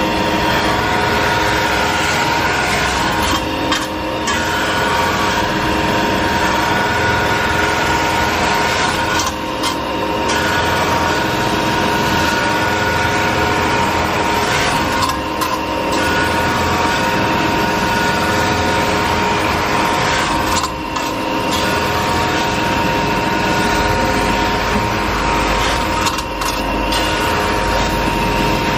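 CNC metal-spinning lathe forming a copper blank over a mandrel: the spindle runs steadily with a high, steady whine while the forming roller presses and rubs on the spinning copper. The noise dips briefly about every five to six seconds.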